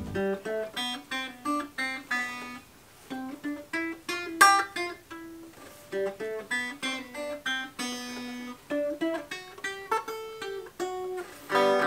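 Banjo picked note by note, a slow, halting tune with uneven pauses between the plucked notes, which the player himself says he totally jacked up.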